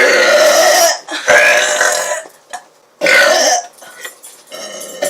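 A run of loud belches: a long one that is already going and stops about a second in, then two more shorter ones, and a quieter one near the end.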